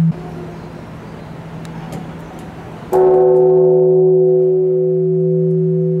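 Japanese temple bell (bonshō) struck once with a hanging wooden log about three seconds in. It gives a sudden deep bong that rings on with a low hum and several steady overtones, the higher ones fading away. Before the strike the ringing of the previous stroke cuts off abruptly, leaving a quieter stretch.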